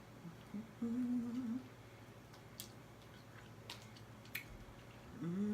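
A woman's short closed-mouth "mmm" hum about a second in, and another beginning near the end, with a few sharp faint clicks in between.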